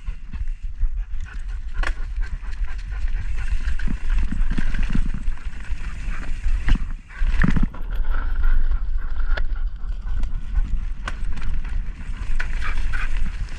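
2023 Pivot Switchblade mountain bike ridden over rough trail: wind rushing over the camera microphone, tyres on dirt and rock, and the bike knocking and rattling over bumps.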